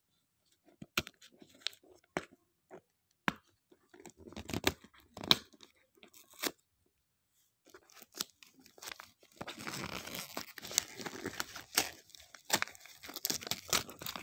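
Gift wrapping paper being handled and torn open by hand: scattered crinkles and taps at first, then from about two-thirds in a continuous stretch of tearing and crinkling paper.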